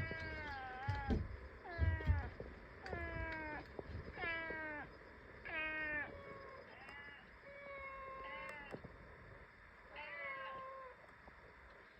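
A domestic cat meowing over and over, about eight meows, most sliding down in pitch, one held longer and steadier. A couple of low thumps come in the first two seconds.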